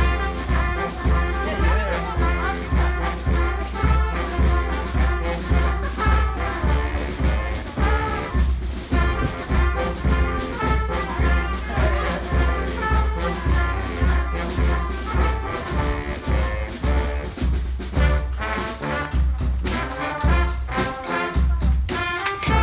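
Brass band playing a tune over a steady low beat.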